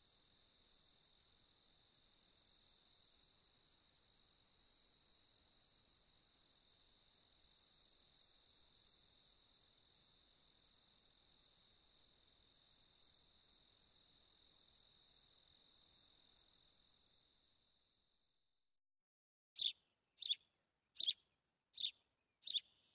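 A faint insect trill, a rapid, even, high-pitched pulsing like a cricket, fades out about three-quarters of the way through. After a moment of silence, short high bird chirps start near the end, about one every 0.7 seconds, and these are the loudest sound.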